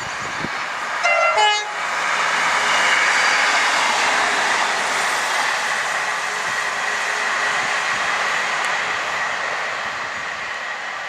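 Two-tone train horn sounding one short blast about a second in, a higher note then a lower note, followed by the steady rush of a train running past.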